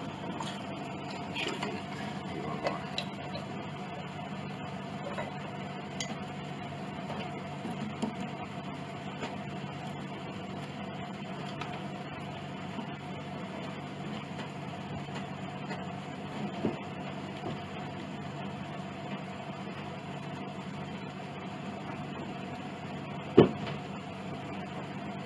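Steady low hum of the workshop, with scattered light clicks and taps as a small clamp and hand tools are handled against the wooden piano rim, and one sharp knock near the end.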